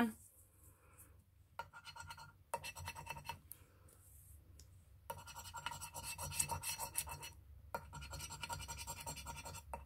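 A coin scraping the silver latex coating off a scratch card in several bouts of rapid rubbing strokes, starting about a second and a half in.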